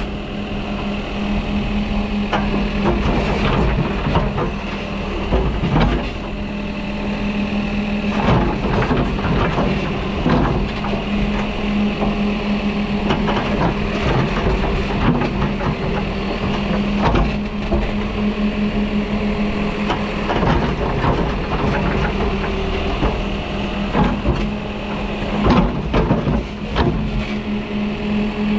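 New Holland backhoe loader's diesel engine running steadily under work, with frequent sharp clanks and knocks from the machine and its bucket.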